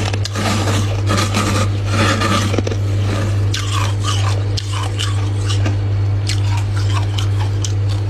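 Freezer frost being bitten and chewed: irregular crunching and scraping crackles, some with short squeaky falling notes, over a steady low hum.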